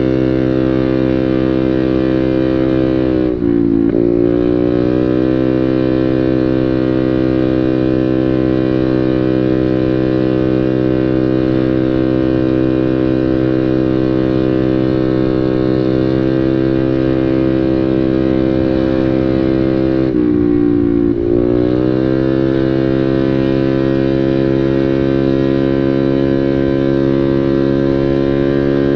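Motorcycle engine running through an aftermarket Samlong full-system exhaust, held at steady revs with a steady tone. Twice, about three seconds in and again about twenty seconds in, the revs dip briefly and climb back.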